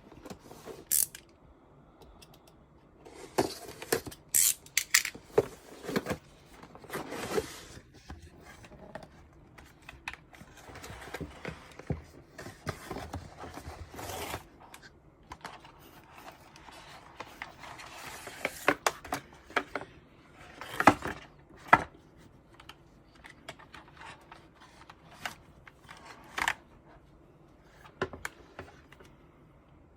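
ROG Strix Scope RX mechanical keyboard with ROG RX Red linear optical switches being typed on: keystrokes come in uneven bursts, with a stretch of fast continuous typing in the middle and a few sharp, louder clacks now and then.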